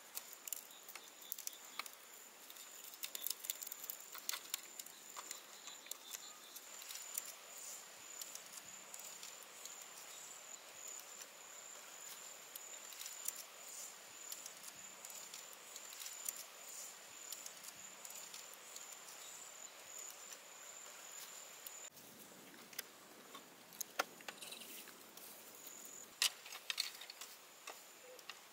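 Light clicks, taps and rustles of bamboo poles and slats being handled and lashed together with bamboo strips, over a thin steady high-pitched insect drone that stops about three-quarters of the way through.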